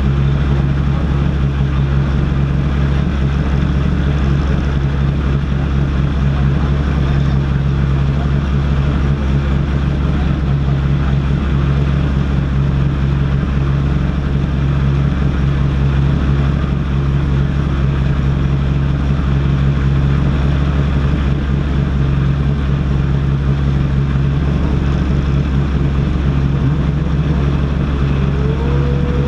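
Citroën rally car's engine idling steadily in neutral, heard from inside the caged cabin.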